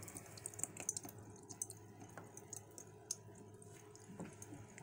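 Faint, irregular ticking and dripping of water splashing onto a small model water wheel and into a plastic tub, fed slowly from a bottle whose airflow is restricted.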